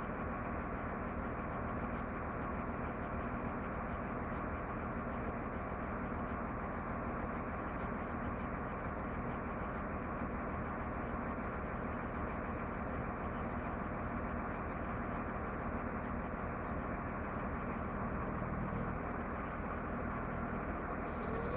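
A heavy truck engine running steadily at idle, an even unbroken drone.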